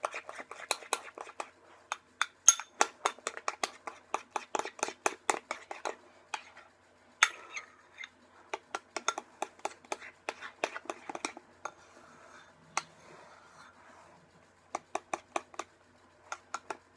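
A utensil stirring glue, water and shaving cream in a bowl, clicking and clinking against the bowl several times a second in runs with short pauses.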